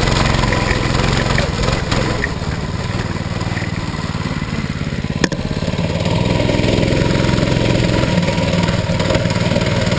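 Predator 212cc single-cylinder go-kart engine running under way, easing off about two seconds in and picking back up about six seconds in. A single sharp click about five seconds in.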